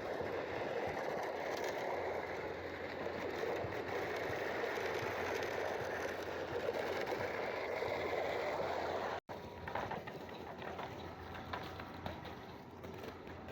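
Steady mechanical job-site noise, breaking off in a sudden cut about nine seconds in and coming back quieter with scattered clicks.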